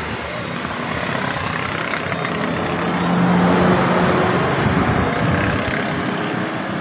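Road traffic noise dominated by a bus's engine running, getting somewhat louder a little past the middle and then easing off.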